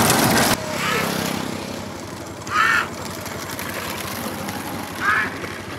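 Loud rushing noise of a bullock-cart race passing close, cut off abruptly about half a second in. Then a quieter steady background hum with three short high calls: about a second in, a louder one near the middle, and one near the end.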